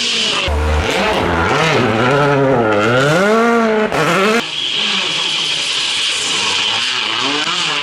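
World Rally Car 1.6-litre turbo four-cylinder engines revving hard, pitch swinging up and down with throttle and gear changes. The sound cuts abruptly about half a second in and again around four and a half seconds in. A steady high hiss runs through the second half.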